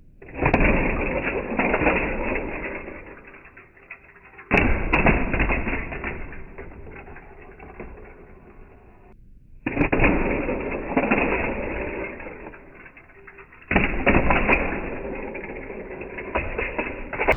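Toy cars running on a plastic toy car track, four times, each run starting suddenly and dying away over a few seconds.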